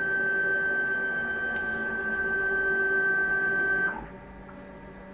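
Stepper motors of a homemade CNC machine driving the axes at constant speed: a steady whine of several pitched tones, which glides down and stops about four seconds in as the move ends.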